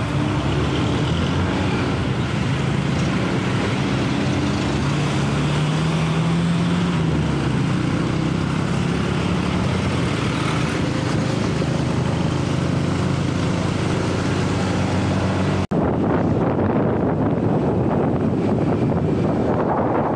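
Motor scooter riding through traffic: its engine running steadily under road and traffic noise, with wind on the microphone. About four seconds before the end there is an abrupt cut, after which the sound is duller and mostly wind.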